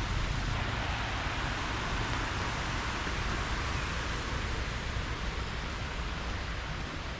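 Steady rushing noise with a heavy low rumble that does not change.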